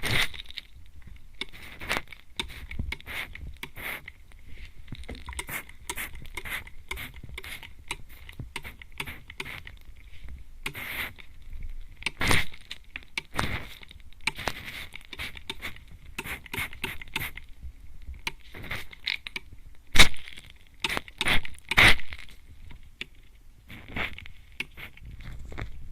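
Mist spray bottle spritzing close onto a microphone's ear: many short hissing sprays at irregular intervals, with a few louder ones about two-thirds of the way through.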